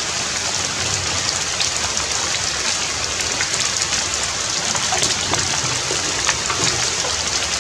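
Steady rain falling on forest leaves and stone, an even hiss with scattered sharper drop hits.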